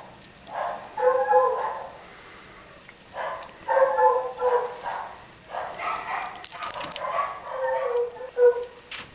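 A series of high-pitched animal cries, each lasting about half a second to a second, with short pauses between them.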